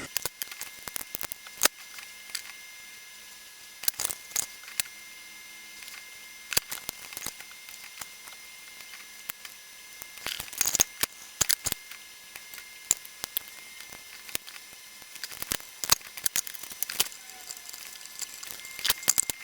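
Scattered light clicks and taps at irregular times, in small clusters, as small electronic parts and hand tools are handled while new components are fitted into a receiver's circuit board.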